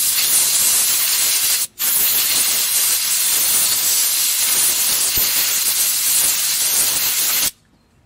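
Aerosol parts cleaner spraying onto a wheel hub in a loud, even hiss. There is a short break under two seconds in, then one long spray of about six seconds that cuts off abruptly.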